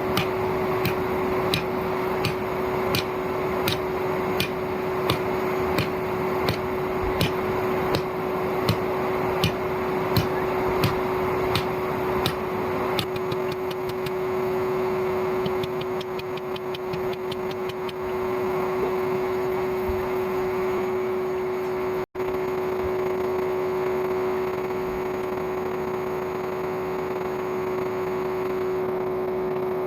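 Old vacuum cleaner motor running as a forge blower: a steady whine on one pitch over a rushing of air. Light, regular ticks come about every two-thirds of a second through the first half, then quicken for a few seconds.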